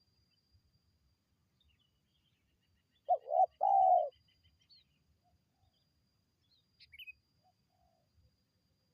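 A spotted dove cooing once: a low three-note phrase about a second long, two short notes then a longer held one. Faint high chirps of small birds come near the end.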